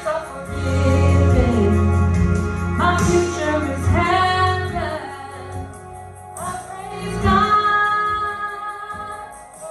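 Gospel worship music with a female voice singing long, gliding notes over keyboard and bass.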